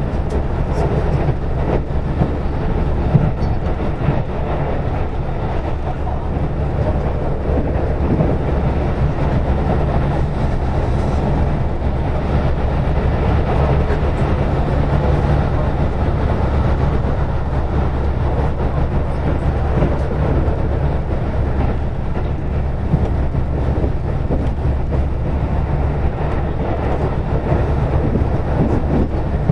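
KiHa 185 series diesel railcar running along the line, heard from inside the car: a steady low diesel engine drone under continuous wheel-and-rail noise, with a few faint clicks.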